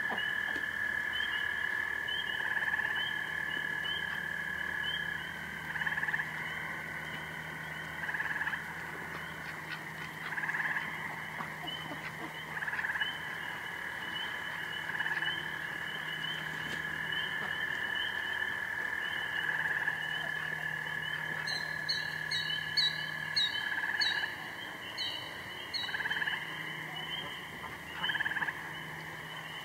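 Night chorus of frogs: long, steady trills overlap and take turns, with a faster pulsing call above them. A quick run of about nine high chirps comes about two-thirds of the way through.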